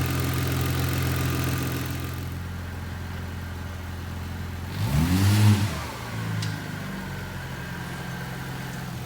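Audi RS4 engine running steadily, blipped once about five seconds in: the pitch rises quickly and falls straight back before it settles to idle again.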